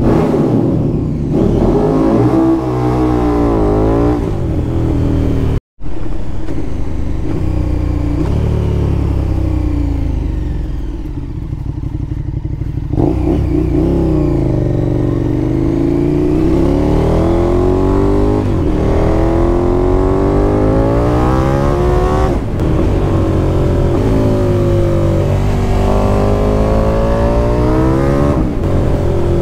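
KTM 1290 Super Duke R's V-twin engine heard from the rider's seat, pulling up through the gears, the revs rising and dropping back at each upshift. Around ten seconds in it slows to near walking pace for a junction, revs falling, then pulls away hard again.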